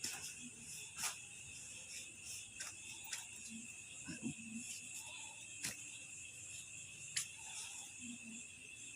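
Faint, steady insect chirring, like crickets, with a few scattered faint clicks and a brief faint low sound about four seconds in.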